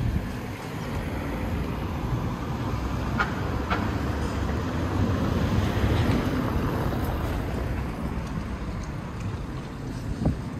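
A motor vehicle passing close by on the street, its low engine and tyre rumble swelling to a peak about six seconds in and then fading, with a few light clicks over it.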